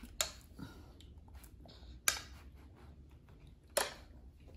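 Metal spoon clinking against a porcelain bowl: three sharp, short clicks a couple of seconds apart as a baby is spoon-fed soup.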